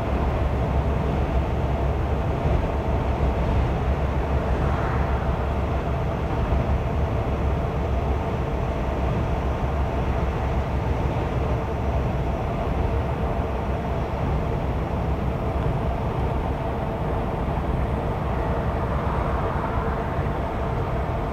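Steady road and engine noise inside the cab of a vehicle cruising on a motorway: a constant low rumble with a faint steady drone above it.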